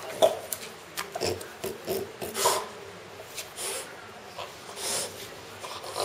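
French bulldog making short, breathy bursts of strange sounds while mouthing a rubber toy, with scattered clicks and rubbing.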